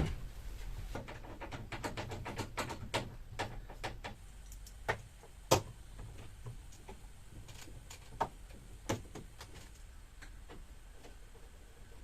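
Clicks, taps and knocks of plastic and metal fridge door parts being handled and pressed into place. A sharp knock at the start, then scattered light clicks with a few louder taps around the middle, thinning out toward the end.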